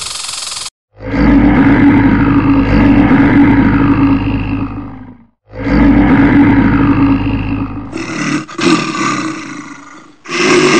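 Bear roaring: two long roars of about four seconds each, then shorter, broken roars near the end.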